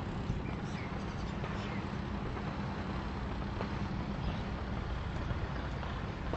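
Steady low outdoor rumble with a hiss above it, with a few faint high chirps here and there.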